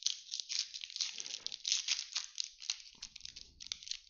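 Foil wrapper of a 2018 Topps Fire baseball card pack being torn open and crinkled in the hands: a dense run of small crackles as the cards are pulled out.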